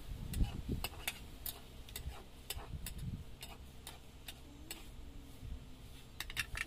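Sharp, irregular clicks and taps, about one or two a second, with a quick cluster near the end, as masala is stirred with a steel spatula in a steel frying pan on a wood-fired clay stove.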